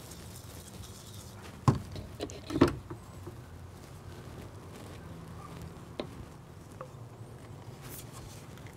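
PVC pipe and caps being handled and fitted together while the caps are cemented on, giving a few light knocks and clicks; the two loudest come about two and three seconds in.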